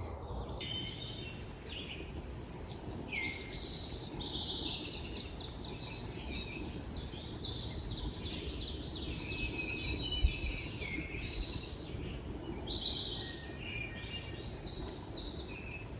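Several songbirds singing, with short overlapping phrases throughout, over a faint low rumble of background noise.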